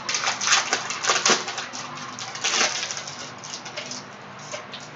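Crinkling and quick clicking rustles of a Prizm trading card pack being torn open and its cards handled, thinning out in the last second.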